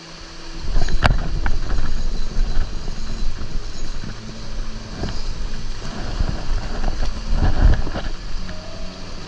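Wind buffeting the microphone over rushing creek water, starting abruptly just under a second in, with a few sharp knocks.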